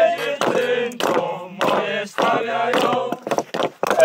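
Several men singing or chanting together in phrases, with a few short sharp knocks of hatchets on wood between them.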